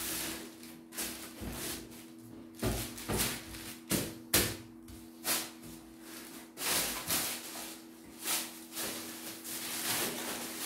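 A cardboard box being handled on a wooden table: a series of knocks, scrapes and thuds as it is stood on end and shifted, then the rustle of a black plastic bag being pulled over it near the end. A steady low hum runs underneath.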